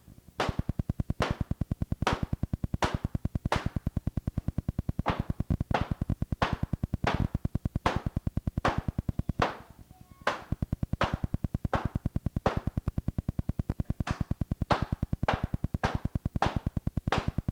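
Electronic music with a steady drum-machine beat over a fast, even pulse.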